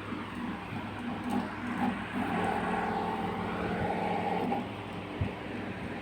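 Ceiling fan motor running on inverter power with a steady electrical hum. A louder, higher whining tone swells in about two seconds in and fades out about halfway through the back half.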